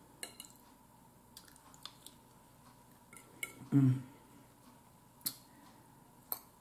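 A metal fork clicking and scraping against a dinner plate in a string of light, scattered clinks. About four seconds in there is one brief hummed voice sound.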